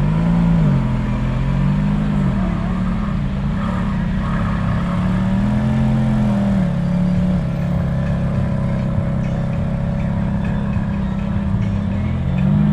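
A supercar's engine revving in repeated blips, the pitch climbing and falling back each time, with a longer rev in the middle and a steady running note between.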